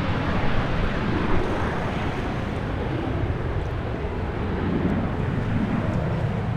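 Turkish Airlines jet airliner's engines at takeoff power during departure: a loud, steady low rumble.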